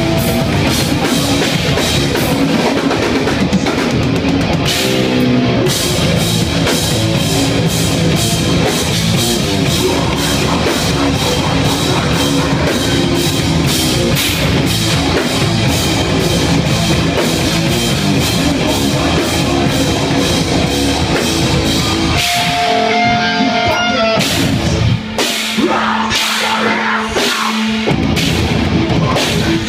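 Heavy metal band playing live: fast, dense drumming on a full drum kit with cymbals, under electric guitars. About 22 seconds in, the dense drumming drops back and held guitar notes ring out over sparser drum hits.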